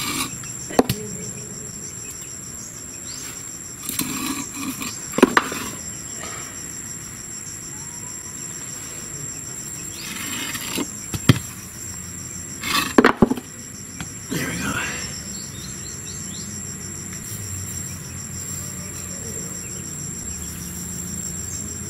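Insects give a steady high-pitched chirring throughout. Over it come several sharp metallic clicks and short rattles from a wire grill grate and tongs being handled over a charcoal fire, the loudest about eleven and thirteen seconds in.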